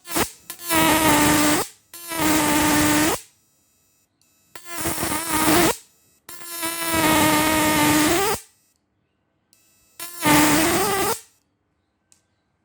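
Analog 12 V-to-high-voltage electric fishing shocker switched on in five short bursts, each a loud harsh electrical buzz with a hiss over it, its pitch bending as each burst ends, during a test of the machine before it goes into water.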